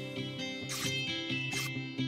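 Background music: a rhythmic tune of short pitched notes, with two brief hissy accents.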